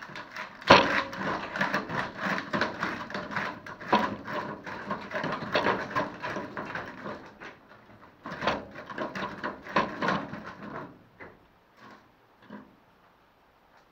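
A rotten, rusted steel roof-gutter strip on a VW T2 bus is bent and wrenched by gloved hands until it tears free. It is a dense, irregular run of cracking, crackling and scraping metal, with the sharpest crack under a second in. The noise thins to a few scattered knocks about eleven seconds in.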